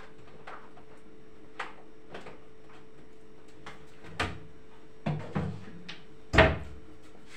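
Scattered knocks and clunks of kitchen handling, about six at uneven spacing, the loudest about six and a half seconds in, over a steady faint hum.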